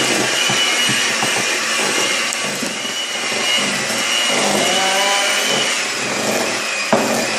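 Electric hand mixer running steadily with a high motor whine, its beaters whipping thick peanut butter frosting. A sharp knock near the end.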